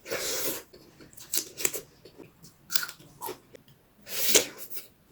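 Close-miked eating: chewing and biting in irregular bursts, the loudest near the start and about four seconds in.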